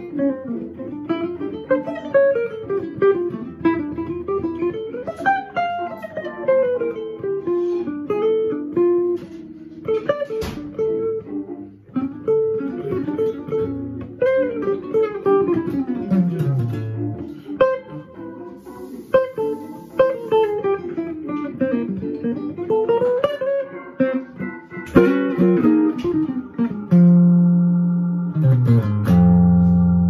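Jazz guitar improvising on a hollow-body electric archtop: fast single-note lines that wind up and down, then a couple of held chords near the end that ring and slowly fade.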